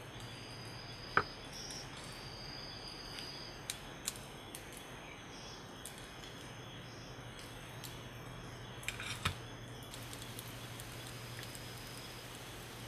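Quiet handling sounds of a coconut curry ladle and fingers on a clay plate: one sharp tap about a second in and a few soft clicks. A brief crackle comes about nine seconds in as a coconut roti is handled and torn. Under it all is a steady low hum and hiss.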